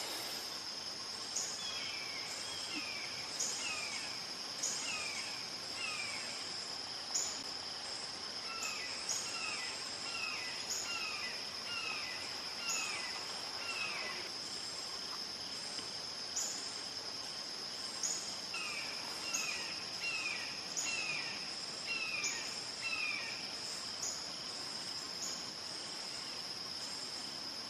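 Red-shouldered hawk calling in three bouts of repeated, downslurred kee-ah screams, each call dropping in pitch, about one to two a second. A steady high-pitched insect drone runs underneath.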